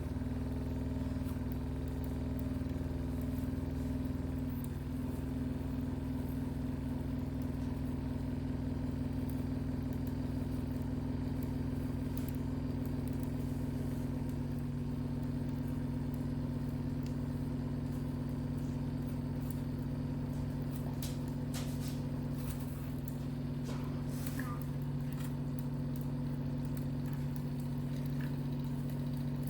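Home cotton candy maker running, its small electric motor spinning the sugar head with a steady hum while it spins sugar into floss. A few light clicks come in about two-thirds of the way through.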